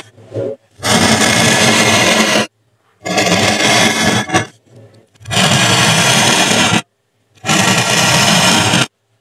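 A pen-shaped tool's tip drawn across foam board, scraping in four long strokes with abrupt silences between them.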